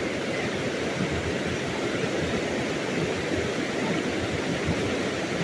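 Steady rushing of fast-flowing river water, an even continuous noise.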